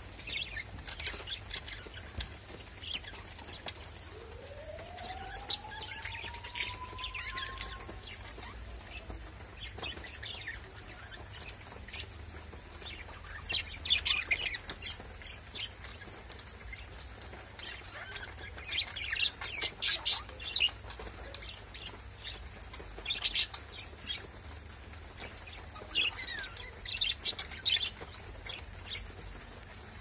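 Budgerigars chirping and chattering in short, scattered high calls, coming in busier clusters now and then.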